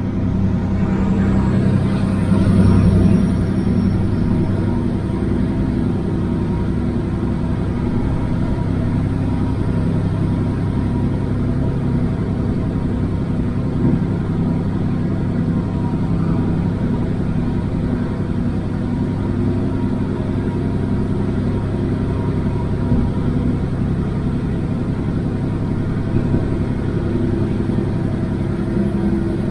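Kenworth W900 semi truck's diesel engine running steadily at cruise with road rumble, heard from inside the cab while driving through a road tunnel. About two to three seconds in it gets a little louder and a faint high whine rises briefly.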